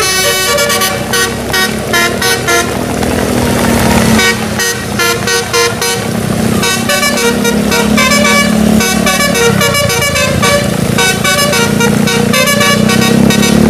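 Bus telolet musical air horn playing a quick run of short melodic notes, one after another, over a steady low engine drone. A brief rush of hiss about three seconds in.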